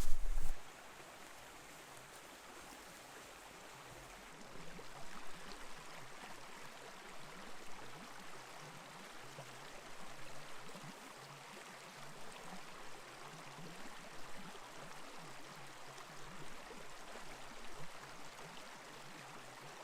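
A brief loud low rumble right at the start, then a small creek flowing steadily, a soft even rush of water.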